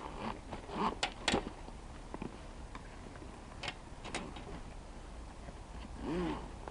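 Scattered sharp plastic clicks and rustling from handling and zipping the tank bag's base, with the loudest clicks about a second in.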